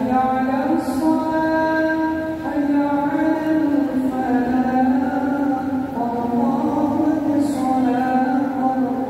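A man chanting an unaccompanied Islamic devotional chant sung before the obligatory prayer, in long drawn-out melodic notes that step up and down.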